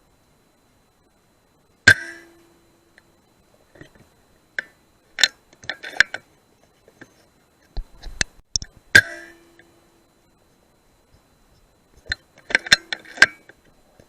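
Two sharp rifle shots about seven seconds apart, each followed by a short ringing tone, with clusters of sharp clicks and clinks between and after them.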